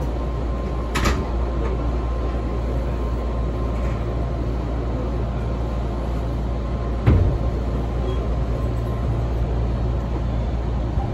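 Steady low rumble of an electric train's wheels and running gear heard from inside the passenger car while under way. There is a short click about a second in and a louder thump about seven seconds in.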